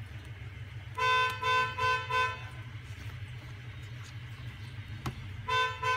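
Four short, buzzy beeps in quick succession about a second in, and another near the end, over a steady low hum.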